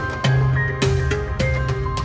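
Instrumental background music with a steady beat: a percussive hit about every half second over a steady bass line and held notes.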